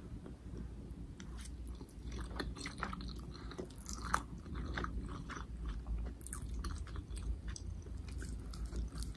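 A person chewing a mouthful of instant noodles and vegetables close to the microphone: a quick, irregular run of small wet mouth clicks and light crunches.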